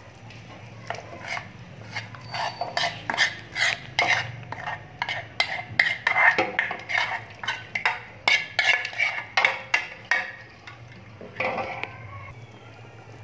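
Spoon stirring and scraping against the inside of a large aluminium cooking pot of beef stew, an irregular run of clinks and scrapes that stops about ten seconds in, with one more short burst just after. A faint steady low hum lies underneath.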